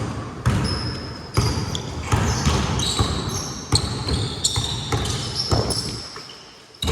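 Basketball being dribbled on a court, bouncing about once or twice a second, with short high squeaks of sneakers on the floor. The bouncing pauses briefly near the end, then one more bounce lands.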